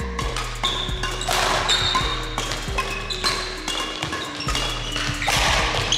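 Background music with a steady beat over a sustained bass line and held synth notes.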